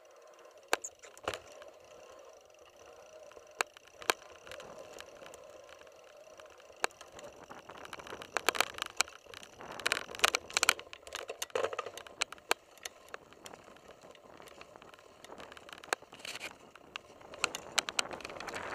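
Mountain bike riding over a rough dirt singletrack: tyre noise on dirt with scattered sharp rattles and knocks from the bike, thickest about eight to eleven seconds in and again near the end.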